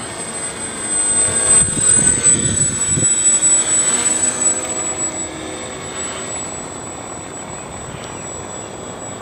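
Homemade RC plane's twin brushless electric motors and propellers buzzing in flight. The buzz swells from about a second in, then fades after about five seconds, with a thin high whine alongside.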